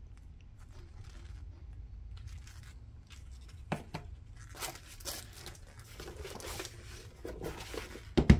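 Paper and plastic packaging rustling as it is handled, with a few sharp clicks and knocks, the loudest near the end.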